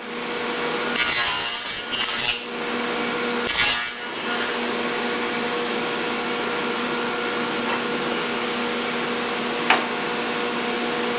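Table saw running with a steady hum, cutting notches into the edge of a pine frame for half-lap joints: a few short cuts in the first four seconds, then the saw running on without cutting. A single sharp click comes near the end.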